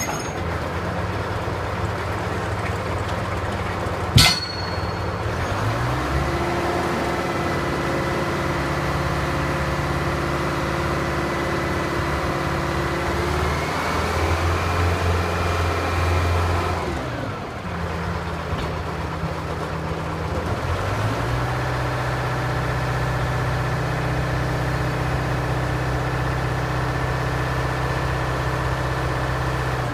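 Engine of a Texoma 700 pressure digger drill rig running, its speed stepping up and down several times as it works. There is a single sharp clank about four seconds in.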